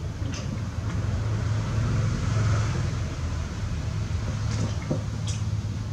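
Steady low mechanical hum with a few faint, short clicks.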